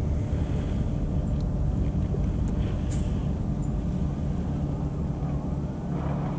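Boat motor running steadily: a low, even hum with a few held tones and no change in speed, with a couple of faint clicks midway.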